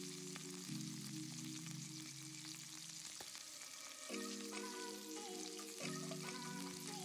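Steaks sizzling in hot oil in a frying pan, a steady hiss with small spits and crackles. Background music with sustained chords plays over it, a higher melody joining about four seconds in.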